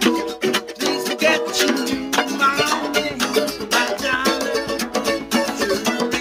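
Acoustic trio playing an instrumental passage: steel-string acoustic guitar strumming, mandolin picking and a djembe played by hand.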